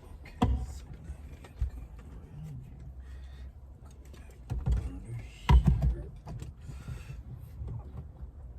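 A few knocks and clunks over a low steady rumble, the loudest cluster about five and a half seconds in.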